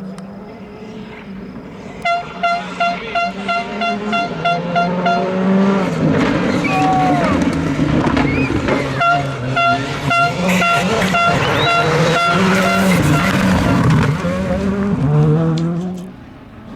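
A rally car passing at speed, its engine revving up and down through gear changes before fading away. Spectators' horns toot in rapid pulses, about three a second, as it approaches and goes by.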